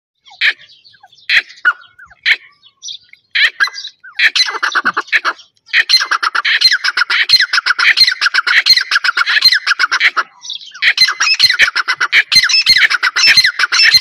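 Grey francolins (teetar) calling: a few separate sharp notes, then long, loud runs of fast, high repeated call notes, broken by a short gap about ten seconds in.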